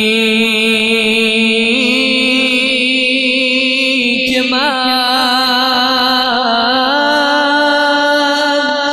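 Male voice singing a Dari devotional song (manqabat), drawing out one long melismatic phrase with wavering ornaments. The held note steps up in pitch about three times.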